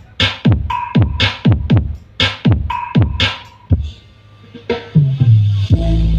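Large outdoor PA sound system, line-array speakers over stacked bass cabinets, playing electronic dance music at sound-check volume: heavy kick-drum beats, a short break about four seconds in, then a long held bass note near the end.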